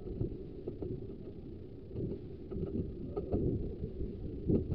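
Ravenglass and Eskdale Railway carriage on the move: a steady low rumble with irregular knocks and clacks from the wheels and track, the loudest knock near the end.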